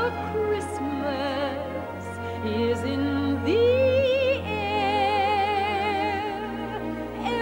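Slow orchestral music: held low bass notes under a wavering melody played with strong vibrato.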